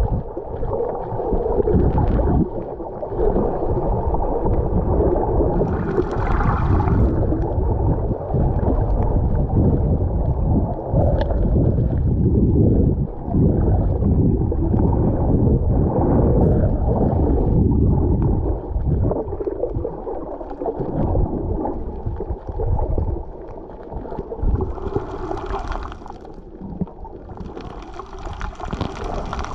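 Muffled underwater water noise around a submerged camera: an uneven low rumble and gurgle of moving water, with brief brighter, hissing splashes about six seconds in and twice near the end.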